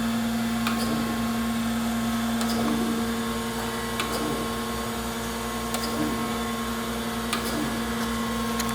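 Acer AGS-1020 surface grinder running under power, its 2 HP spindle motor and hydraulic table drive giving a steady hum, with a light click about every one and a half seconds.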